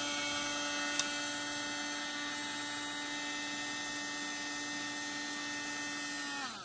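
Vacuum cleaner motor running with a steady whine, with a single click about a second in; near the end it is switched off and its pitch falls as the motor winds down.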